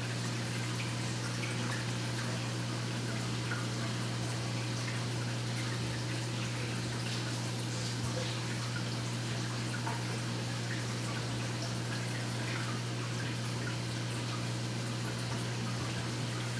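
Aquarium pump running with a steady low hum under circulating, trickling water, with scattered faint drips and ticks.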